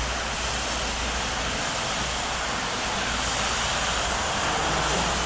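Bennett D100B wet floor-cleaning machine running: a steady hiss over a low hum.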